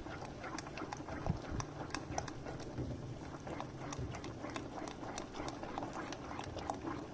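Silicone spatula stirring thick white sauce in a stainless steel pot: irregular light clicks and scrapes, several a second, as the sauce thickens.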